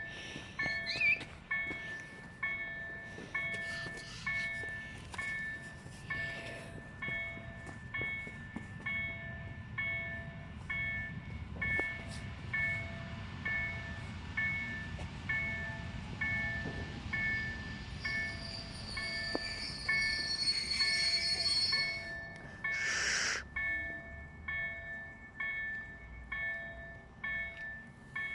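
Railway level-crossing warning bell ringing in a steady rhythm, a little faster than once a second, as a train rumbles past. High wheel or brake squeal comes near the end of the pass, then a short hiss.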